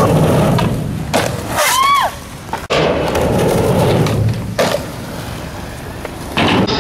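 Skateboard rolling on concrete, with sharp clacks and thuds from the board popping and landing on ledges and boxes, and a short squeal about two seconds in.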